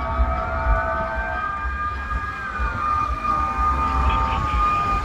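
Emergency vehicle siren wailing in the distance, its pitch climbing slowly and sliding back down, with a second, steadier siren tone coming and going underneath. Low traffic rumble runs beneath it.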